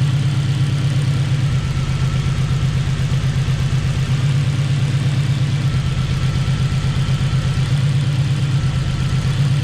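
Honda K20 turbo four-cylinder engine idling with a misfire, its note changing a few times as the number 4 injector connector is wiggled: a sign of a poor connection at that injector plug.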